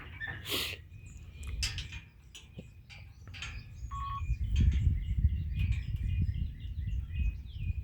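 Small birds chirping repeatedly, over a low rumble that grows louder about halfway through, with a few light knocks near the start.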